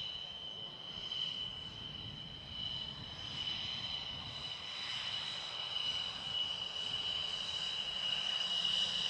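MiG-29 fighter's twin jet engines whining steadily on the ground: a high, even whine over a low rumble, growing a little louder near the end.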